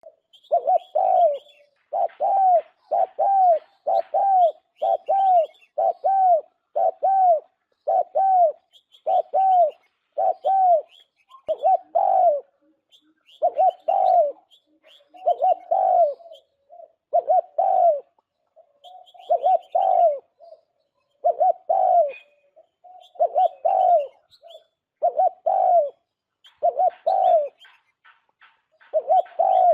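Spotted dove cooing: short pitched coos repeated about once a second, with fainter high chirps of small birds over them. This is a decoy call recording of the kind played to lure doves into traps.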